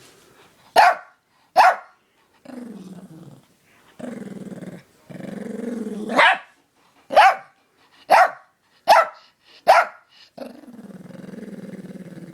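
A dog growling in long low stretches, broken by seven sharp barks: two near the start, then a quick run of five in the middle, the first coming straight out of a growl. It is reacting to a dog whistle too high-pitched for people to hear; the whistle itself is not heard.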